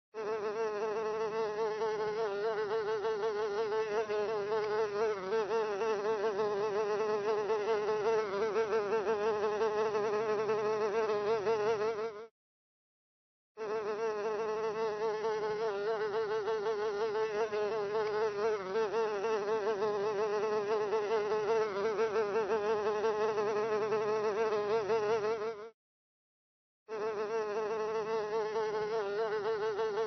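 A housefly buzzing in flight: a steady buzz with a wavering pitch. It stops twice for about a second, roughly thirteen seconds apart, then resumes.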